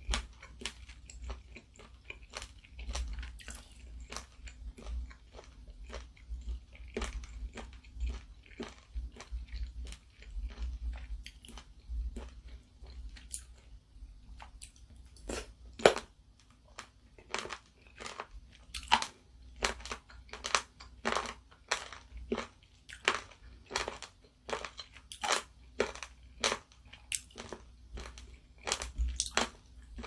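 Close-miked chewing of seafood ramyeon with warty sea squirts (mideodeok): a string of short, wet, crunchy bites and pops as the firm, chewy sea squirts burst. The sharpest pop comes about sixteen seconds in, and the bites come more regularly in the second half.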